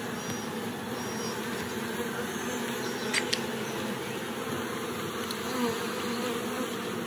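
Honey bees from an opened nucleus colony buzzing in a steady, dense hum around the hive as their frames are moved. A couple of short clicks come about three seconds in.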